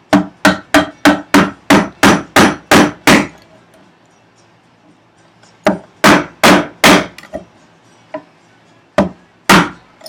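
Mallet striking a chisel, chopping out a housing dado in wood. There is a run of about ten sharp blows at roughly three a second, then a pause, then five more blows, a couple of light taps and two last blows near the end.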